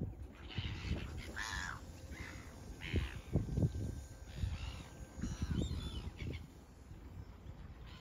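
Gulls in a flock squawking: about half a dozen harsh calls in quick succession that thin out near the end, over a low rumble.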